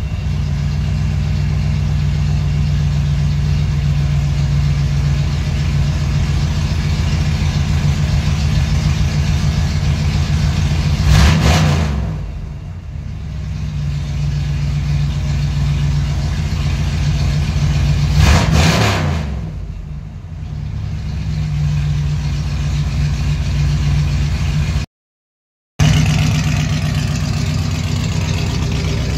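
Ford 5.0 V8 swapped into a BMW E36, running at a steady idle. It is revved briefly twice, about seven seconds apart, and settles back each time.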